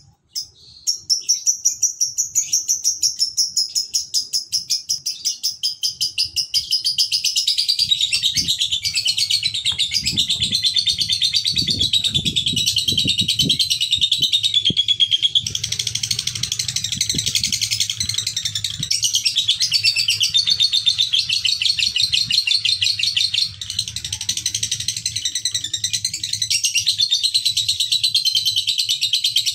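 Male Fischer's lovebird giving a long 'ngekek' chatter: a very rapid, unbroken trill of high chirps that wavers in pitch, with one brief falter about three-quarters of the way through. This is the sustained chatter used as a lure to set other lovebirds chattering.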